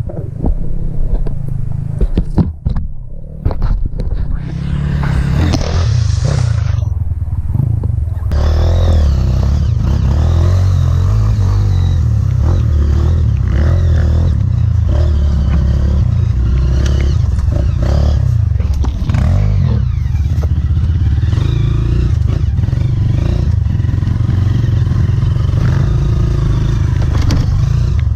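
Single-cylinder four-stroke trail motorcycle engine running while riding over rough ground, with frequent knocks. The engine sound dips a few times in the first eight seconds, then runs steady and loud.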